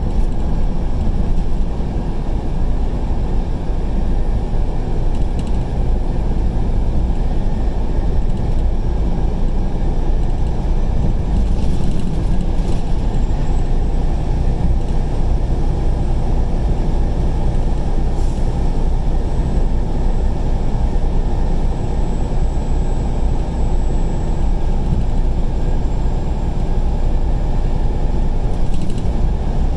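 Steady low engine and road noise inside the cab of a vehicle driving on the highway.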